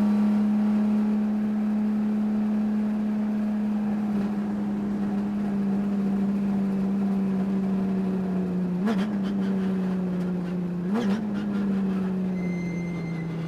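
Race car engine held at high revs, its pitch sagging slowly, with two brief sharp blips about nine and eleven seconds in and a drop in revs near the end. The owner says the engine had a high-RPM miss throughout the race.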